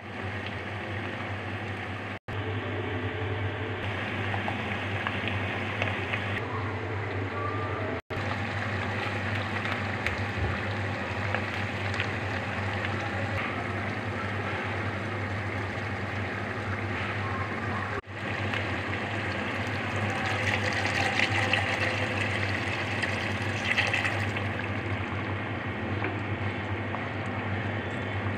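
Chicken pieces sizzling and crackling as they fry in oil and masala in a pot over high heat, over a steady low hum. The sound breaks off abruptly three times, and the crackle grows stronger in the last third.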